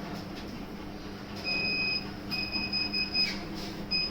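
An electronic device beeping: one half-second beep about a second and a half in, then a run of beeps lasting about a second with short breaks, and another short beep near the end, over a steady low hum.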